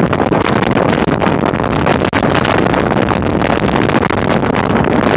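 Loud, steady rush of wind on the microphone from a car moving at speed.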